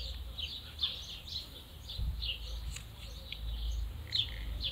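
Small birds chirping repeatedly, over a low rumble.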